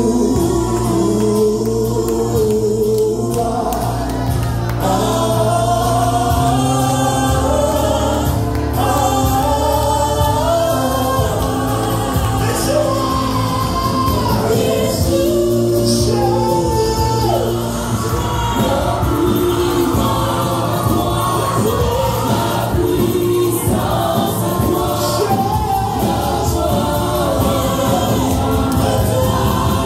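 Gospel praise music: a choir singing over a band with a steady bass line and drums.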